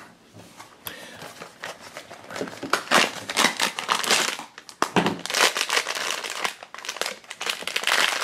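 Foil blind-box bag crinkling as hands pull it from its cardboard box and work it open, in several loud bursts of crackle.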